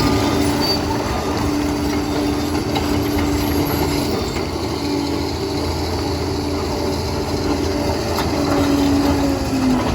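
Liebherr 746 crawler dozer at work: its diesel engine runs steadily under load with a whine that sags briefly near the end.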